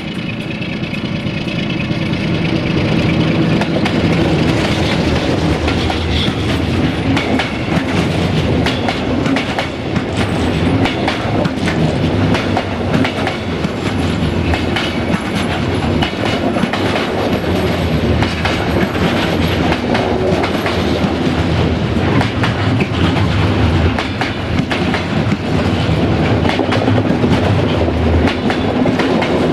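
A long container freight train hauled by a 060-DA (LDE2100) Sulzer diesel-electric locomotive passing close by. The sound grows louder over the first few seconds as the locomotive nears, then the loaded container wagons roll past with a steady rumble and clickety-clack of wheels over rail joints.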